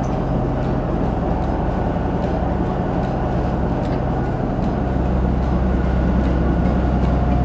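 Fishing boat's engine running steadily under way: a low steady hum under a dense rushing wash of water noise.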